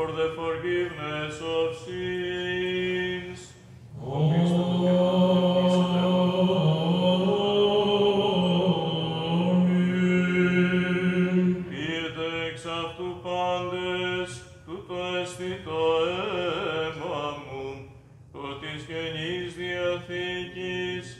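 Greek Orthodox Byzantine chant sung by men's voices: slow, drawn-out melodic phrases over a steady held low note, loudest in a long phrase from about 4 to 11 seconds in.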